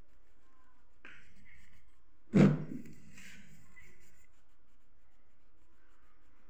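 Wax crayon rubbing on notebook paper during colouring, with one loud, sudden knock about two and a half seconds in.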